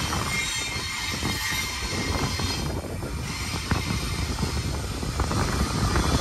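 Freight train cars rolling past on the track: a steady rumble of steel wheels on rail, with scattered clanks and a faint high wheel squeal.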